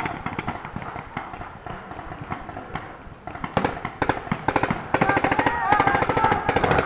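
Paintball markers firing: scattered shots at first, then rapid, dense volleys from about three and a half seconds in, with voices shouting over them near the end.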